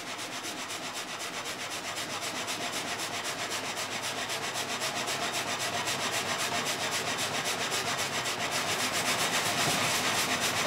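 Saw in an old timber sawmill cutting through a log, a rasping in even strokes, about four a second, growing louder toward the end.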